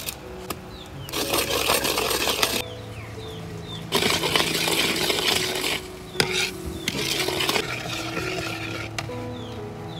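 Metal ladle scraping and stirring around a steel wok as a seasoning paste fries in bubbling oil, in three or four spells of a second or two each. Soft background music plays underneath.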